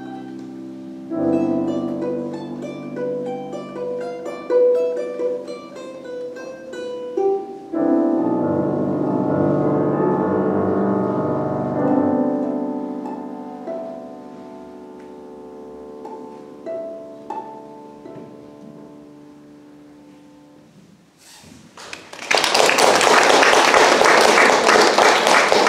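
Balalaika plucked over piano accompaniment, the music growing quieter and dying away. Near the end, audience applause breaks out.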